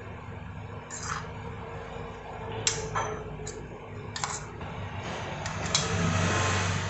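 A metal spoon clinking and scraping on a plate of biryani, a handful of short clicks spread over a few seconds. Near the end a rush of passing road traffic rises over them.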